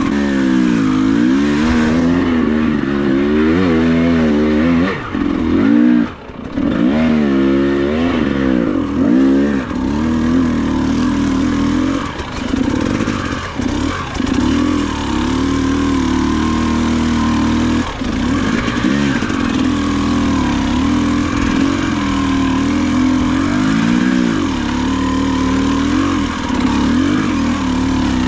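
Off-road motorcycle engine being ridden hard, its revs rising and falling over and over through the first ten seconds, with a brief drop about six seconds in, then holding steadier revs with occasional swings.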